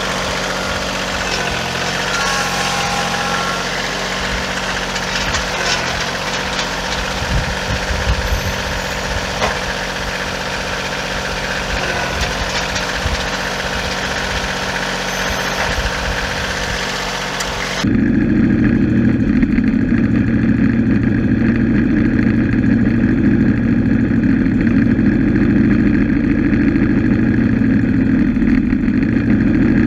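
An engine running steadily. About two-thirds of the way through, the sound switches abruptly to a louder, deeper, steady drone.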